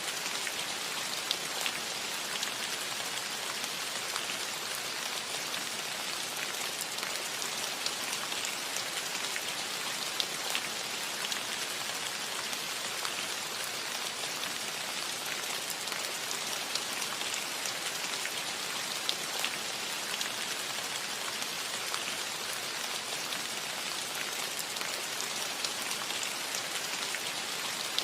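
Soft rain falling steadily on a metal roof: an even hiss sprinkled with many small, irregular ticks of drops hitting the roof.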